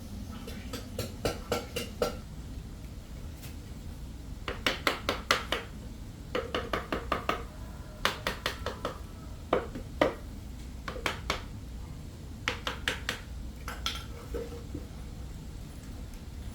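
Hammer driving nails into wood. The light, ringing metallic strikes come in quick runs of about four to six, with short pauses between the runs and a few single blows.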